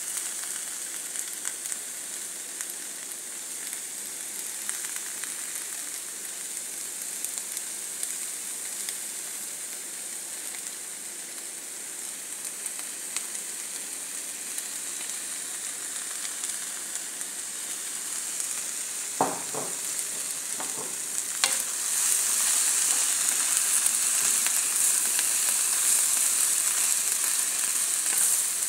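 Cabbage, carrot and green pepper stir-frying in a hot pan: a steady sizzle. A few sharp knocks come about two-thirds of the way through, and the sizzle grows louder soon after.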